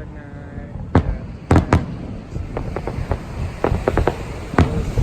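Aerial fireworks shells bursting in an irregular string of sharp bangs, the loudest about a second and a half in, with a quick run of bangs in the second half.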